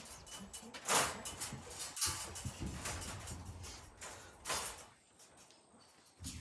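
Dog crate being handled, with a few separate knocks and scrapes about a second apart, the last about four and a half seconds in.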